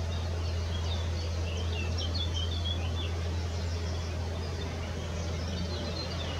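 Small songbirds chirping in quick, short high notes, over a steady low hum.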